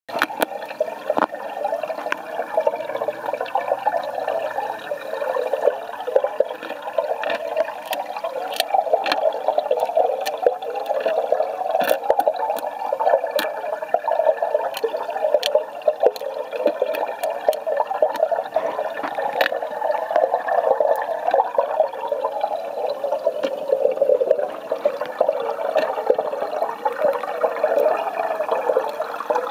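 Steady rushing, bubbling water of an aquarium tank's circulation, with scattered sharp clicks throughout.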